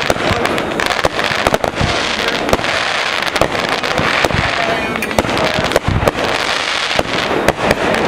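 Fireworks going off in a dense barrage: a rapid, unbroken run of sharp bangs and crackles, with a few heavier thuds mixed in.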